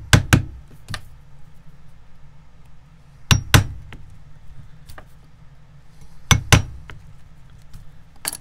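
A hammer tapping a metal awl into a leather shoe heel to deepen the nail holes: sharp metallic taps, mostly in pairs, with a group of three or four near the start, pairs about every three seconds after that, and a single tap near the end.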